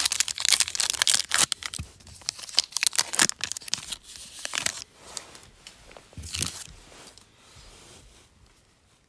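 Crinkly wrapper of a Rookies and Stars football trading-card pack being handled and torn open. The crackling is densest in the first two seconds, comes in shorter bursts after that, and fades to faint handling near the end.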